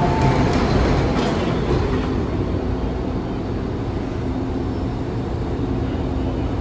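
Steady low rumble and hum of an MTR M-train standing at an underground platform with its doors open. A two-note electronic door beep finishes about half a second in.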